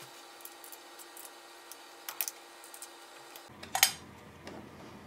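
Faint light metallic clicks and taps of an Allen wrench and screw being worked at the drum sander's sheet-metal controller box, then one sharper metal clink a little under four seconds in.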